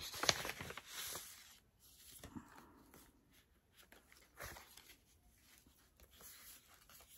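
Paper rustling and scraping as a mailed envelope is opened and a card is pulled out, busiest in the first second and a half, then a few faint rustles.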